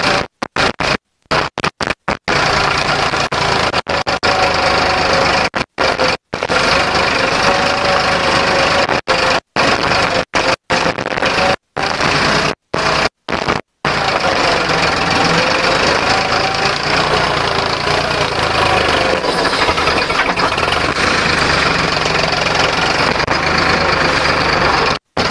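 Farmtrac 60 tractor's three-cylinder diesel engine running steadily under heavy load while pulling a four-disc plough through the ground. The sound cuts out briefly many times in the first half.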